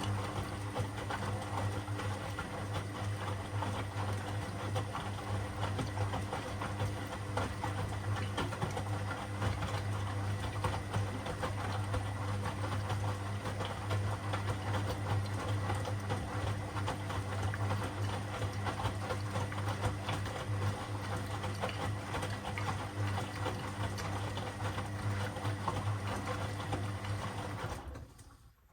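Washing machine running: a steady motor hum with the drum and load rattling. It cuts off suddenly near the end.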